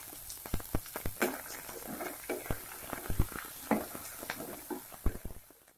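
Peas, onion and capsicum frying in oil in a wok while being stirred with a spatula: a faint sizzle under irregular clicks and knocks of the spatula against the pan. It fades out near the end.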